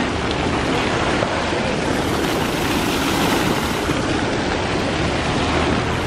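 Steady rushing of water from a fountain.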